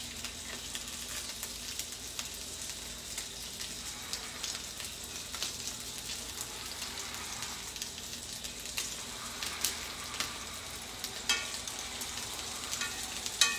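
Sardines sizzling steadily in a hot skillet, with scattered clicks and scrapes of a metal utensil against the pan and plate as the fish are lifted out; a sharper clink near the end.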